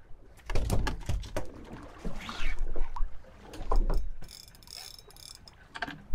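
Fishing reel and rod worked while playing a hooked blue shark from a small boat: irregular clicks and knocks, deep gusty rumbles about half a second in and near four seconds, and a thin high buzz for about a second from about four seconds in.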